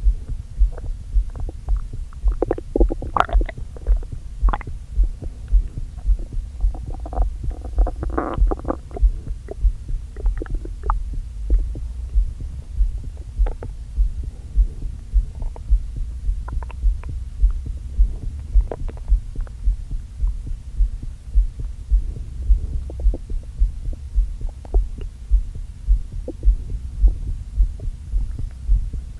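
Stomach and intestines gurgling, heard through a microphone pressed to the belly over a low heartbeat thud a little more than once a second. The uploader puts the upset down to eating a lot too quickly after going without food. The loudest gurgling comes in two bubbling runs in the first ten seconds, then thins to scattered small pops.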